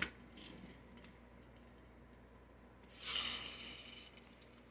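Pullback motor of a small plastic Transformers toy vehicle: a click at the start, then about three seconds in a whirring buzz lasting about a second as the wound-up spring spins the wheels.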